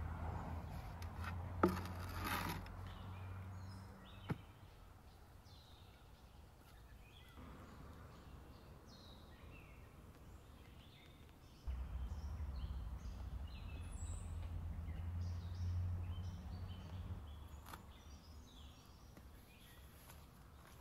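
Small birds chirping throughout, over a low rumble that comes and goes. About two seconds in, water poured from a plastic scoop splashes over chicken pieces in a basin, just after a sharp knock; a second knock follows a couple of seconds later.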